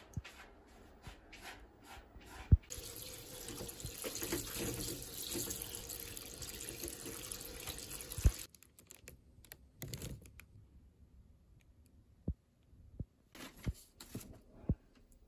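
Kitchen tap running water into a bowl of glass noodles for about six seconds. It starts about two and a half seconds in, just after a sharp knock, and cuts off suddenly with another knock. A few faint clicks and taps follow.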